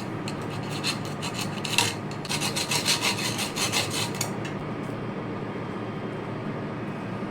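Steel wire rope being handled and worked: a quick run of scraping and rubbing strokes with a sharp click, as the lashing comes off the freshly spliced eye and thimble. The scraping stops a little past halfway, leaving a steady low hum.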